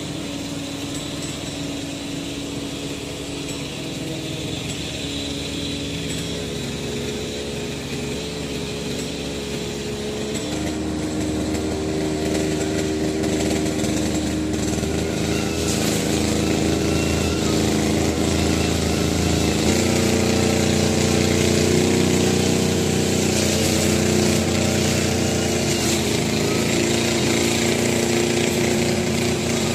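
Walk-behind push lawn mower with a 190cc Honda petrol engine running steadily while cutting grass. It grows louder from about a third of the way in as it comes nearer, and its note shifts a couple of times.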